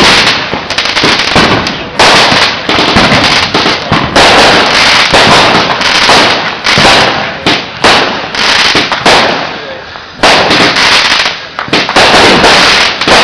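Fireworks going off in rapid succession: repeated sharp bangs with dense crackling between them. The sound is loud throughout, easing briefly just before a fresh bang about ten seconds in.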